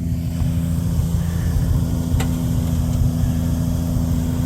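An off-road vehicle's engine running steadily with a low rumble, with a single sharp click about two seconds in.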